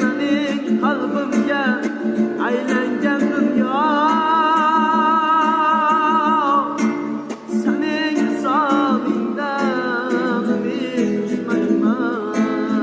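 Music: a song with a sung vocal line over plucked-string accompaniment. The singer holds one long, wavering note through the middle, and the music dips briefly just after it.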